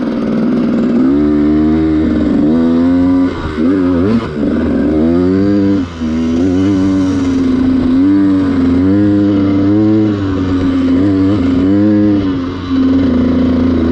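Dirt bike engine running as it is ridden off-road, its pitch rising and falling repeatedly as the throttle is opened and closed, with a few brief cut-backs in level around three to six seconds in and again near the end.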